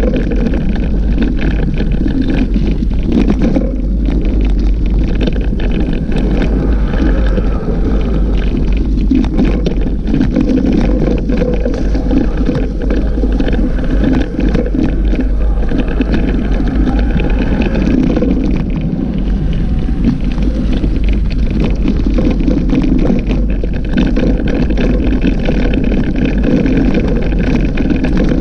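Wind buffeting the microphone of a bicycle-mounted camera while riding off-road, with the steady rolling and rattling of the bike on a dirt track.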